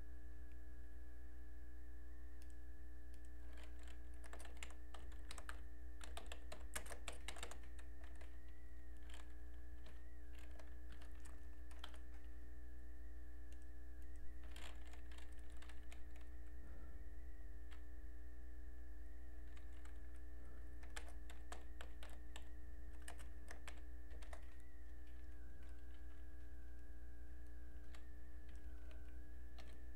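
Typing on a computer keyboard in several bursts of quick keystrokes with pauses between them. Under it runs a steady low hum and a faint, slightly wavering high whine.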